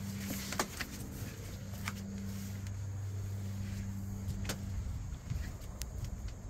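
A steady low mechanical hum that fades in and out, with scattered sharp light clicks and taps.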